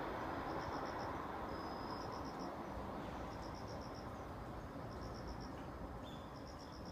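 Crickets chirping in short high trills of four or five pulses, repeating about every second and a half, over a low rumble that slowly fades as a passing train recedes.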